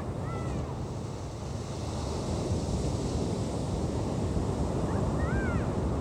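Ocean surf breaking on a sandy beach, a steady wash of waves that grows louder about two seconds in as a wave comes in. Short high calls sound near the start and again near the end.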